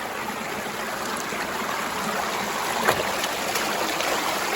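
Small rocky stream flowing, a steady rush of water that grows a little louder, with one sharp knock about three seconds in.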